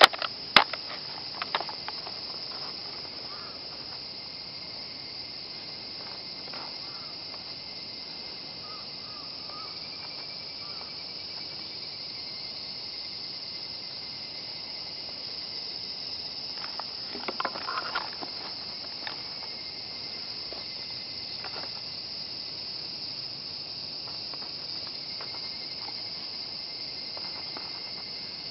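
A steady, high-pitched chorus of insects runs throughout. A few sharp clicks come from the airsoft rifle being handled: two just after the start and a short cluster about 17 seconds in.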